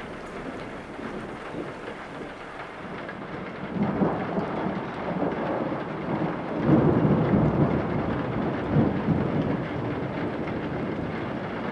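Low rumbling noise in a film soundtrack, swelling about four seconds in and loudest from around seven seconds.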